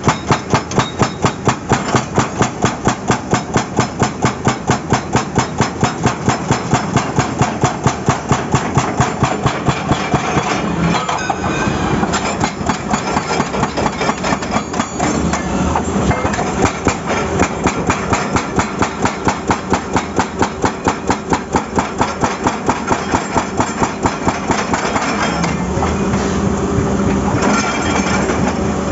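Excavator-mounted hydraulic breaker hammering asphalt, rapid regular blows about four a second, over the excavator's running engine. After about ten seconds the blows turn less even, and near the end the engine's steady hum is more prominent.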